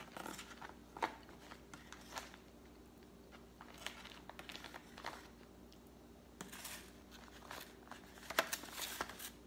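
A spoon clicking and scraping in a plastic takeaway tray and the loose plastic wrap crinkling as frozen durian is scooped and eaten, in scattered short rustles and clicks that come thickest near the end. A faint steady hum runs underneath.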